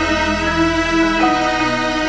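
Instrumental soundtrack music of sustained, held chords, the harmony changing a little over a second in.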